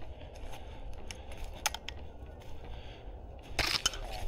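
Footsteps on a dry forest floor, twigs cracking underfoot at irregular intervals, with a louder brush of branches about three and a half seconds in.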